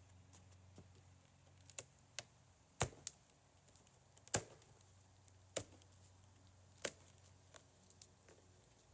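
Handling noise: about seven sharp knocks and clicks at irregular intervals over a faint low hum.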